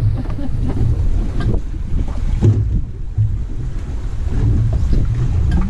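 Wind rumbling on the microphone aboard a fishing boat under way, with waves washing against the hull. The rumble is steady and loud, rising and falling in gusts.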